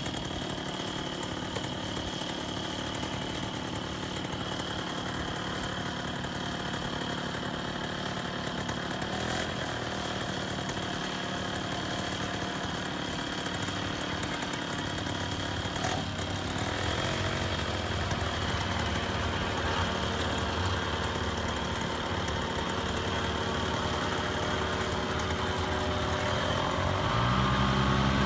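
Paramotor engine idling steadily, with a short rise and fall in pitch about halfway through and the engine revving up and getting louder near the end.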